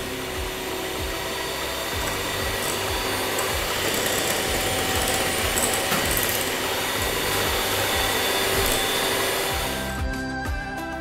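Electric hand mixer running steadily, its twin beaters whipping eggs, sugar and vanilla in a glass bowl toward a fluffy, creamy sponge batter. It cuts off about ten seconds in, leaving soft background music.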